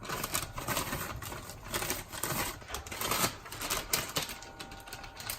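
Rapid, irregular clicking and clattering, many small clicks close together.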